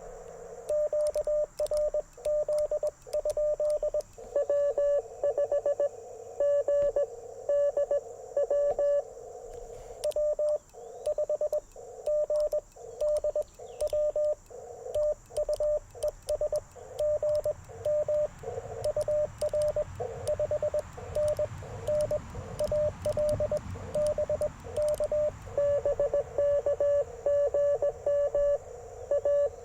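Morse code (CW) from an Icom IC-705 transceiver: a single steady-pitched tone keyed on and off in dots and dashes, over a narrow band of receiver hiss, with faint clicks throughout.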